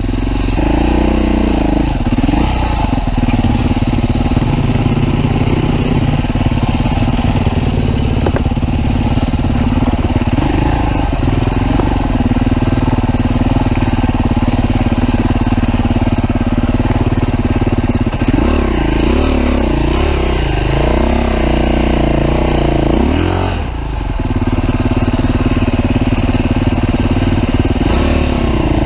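Husqvarna TE310R single-cylinder four-stroke dirt bike engine running under load on a trail climb, its revs rising and falling with the throttle. The engine briefly eases off about four-fifths of the way through, then picks up again.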